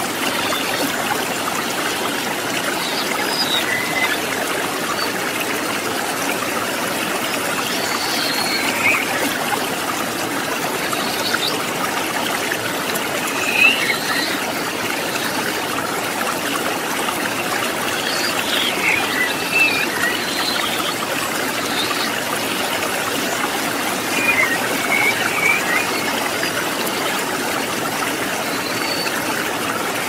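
River water running over rocks: a steady rushing and trickling, with brief higher-pitched sounds standing out every few seconds.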